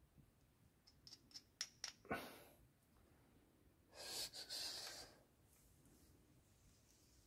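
Faint handling sounds: a few light clicks, then about four seconds in a scrape lasting about a second as a new rear brake pad is slid into the caliper bracket's pad clips.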